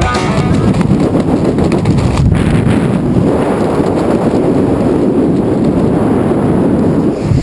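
Loud, steady wind noise buffeting the camera's microphone as a tandem skydive pair descends under an open parachute.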